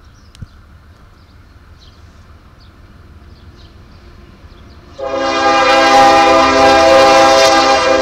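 A Norfolk Southern freight diesel locomotive's multi-tone air horn sounds one loud, long blast, starting suddenly about five seconds in and still held at the end.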